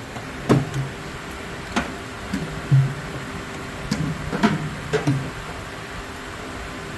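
About half a dozen scattered clicks and light knocks as engine parts and fasteners are handled and worked loose by hand, over a faint steady hum.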